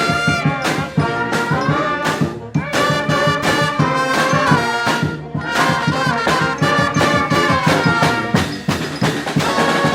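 Street brass band playing live: horns holding and moving between sustained notes over a steady drum beat.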